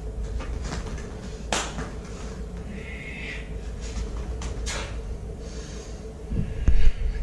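Two sharp slaps or snaps about three seconds apart from a martial artist's empty-hand strikes, over a steady hum, then a few dull thumps near the end, likely feet landing on the foam mat.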